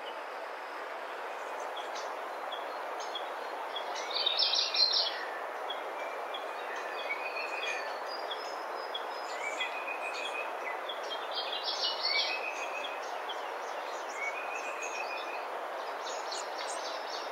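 Birds calling over a steady forest hiss: short high chirps repeated every second or so, brief clusters of rapid calls about four and eleven seconds in (the loudest), and several short level whistled notes.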